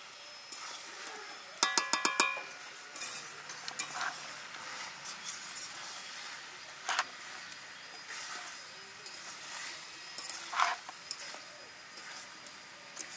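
Hands turning oiled luchi dough balls in an aluminium bowl. A quick run of ringing metallic clinks against the bowl comes about two seconds in, then a few single knocks later.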